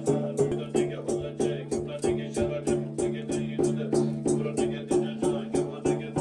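Background music: a steady low drone under a quick, even beat of about four strokes a second.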